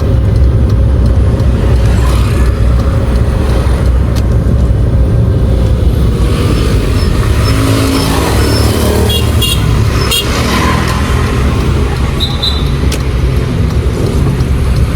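Car engine and road noise while driving: a steady low rumble, with a few faint short beeps about midway and again near the end.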